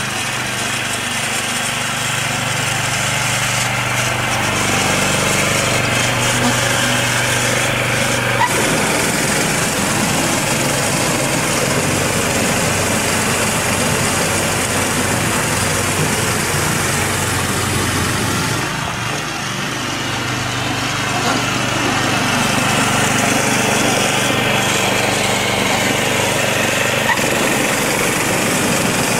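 Small engine of a MARKO walk-behind tiller running steadily under load, driving its belt-driven snow-blower attachment as it throws snow. The engine note dips briefly about two-thirds of the way through, then steadies again.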